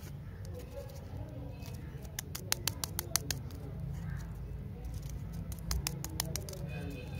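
Plastic lollipop wrapper handled between the fingers, giving clusters of sharp crackles about two seconds in and again near the end, over a low steady hum.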